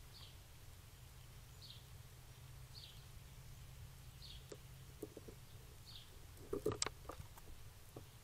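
A bird gives a short, slightly falling high chirp five times at an even pace, about one every 1.3 seconds. A squirrel pressed against the trail camera makes a few soft clicks and knocks on it, the loudest pair about seven seconds in.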